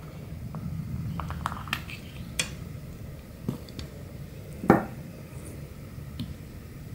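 Small plastic clicks and knocks of a radioactive-source case being opened and handled on a tabletop, with a Geiger counter probe set down over it; about six separate knocks, the loudest a little under five seconds in.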